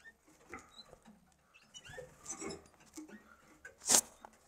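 Small cage birds, canaries and goldfinches, shuffling and pattering in their cages with a few faint, short, high chirps. One short, loud burst of noise comes near the end.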